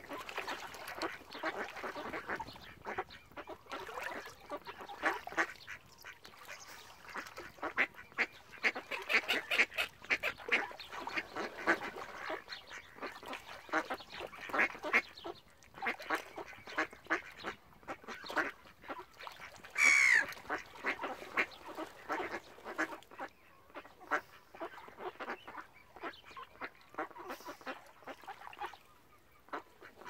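A flock of mallard ducks quacking and chattering in quick runs of short calls. One louder, higher call slides down in pitch about two-thirds of the way through.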